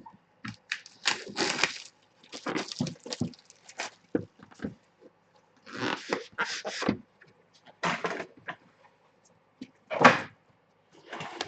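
A trading card box being opened and its card taken out: a run of short rustles and scrapes of cardboard and packaging, with knocks and one sharper knock about ten seconds in.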